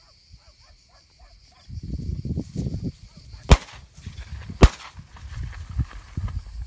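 Two shotgun shots, sharp cracks a little over a second apart in the middle of the clip.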